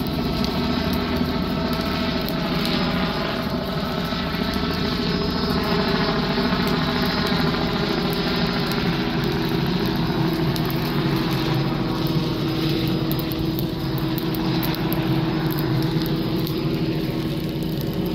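Helicopter overhead: a steady drone of engine and rotor, with a pitched whine that wavers slightly in the first half.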